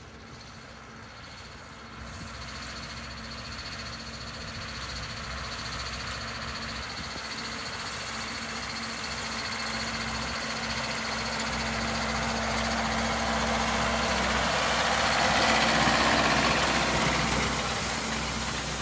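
Case 770 Agri-King tractor's four-cylinder engine running steadily while pulling a twelve-wheel hay rake through cut hay. It grows louder as the tractor approaches and passes close by, is loudest about sixteen seconds in, then fades a little.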